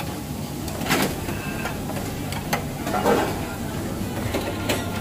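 Busy restaurant ambience: a steady low hum with scattered sharp clinks and knocks, like metal serving tongs and utensils on steel buffet trays, and a brief murmur of voices about three seconds in.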